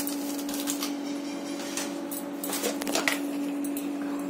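A steady low hum, with a few faint clicks and rustles about two and a half to three seconds in.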